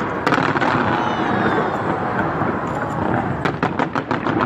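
Fireworks show going off: many sharp crackles and bangs in quick succession, coming thickest near the end, with a few whistles about a second in, over a steady hubbub of a crowd.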